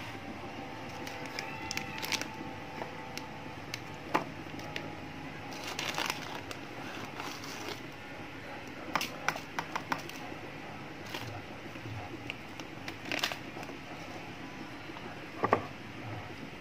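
Plastic salt packet crinkling and rustling as it is handled, with scattered short sharp clicks.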